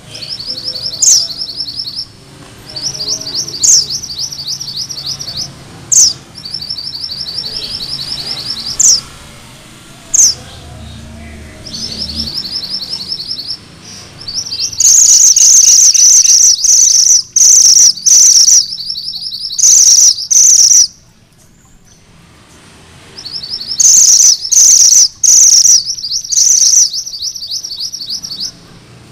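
Male minivet (mantenan gunung merah) singing: sharp high whistled notes alternating with rapid rolling trills (the 'ngerol'). The song grows louder and denser from about halfway, with a short pause about two-thirds of the way through.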